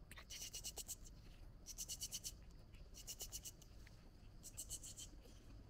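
Faint scratching from fingers rubbing quickly, in four short bursts of rapid strokes spaced about a second apart.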